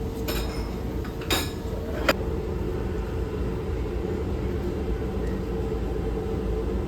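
Steady low rumble of a moving vehicle with a faint constant hum, broken by two sharp clicks, one just over a second in and one about two seconds in.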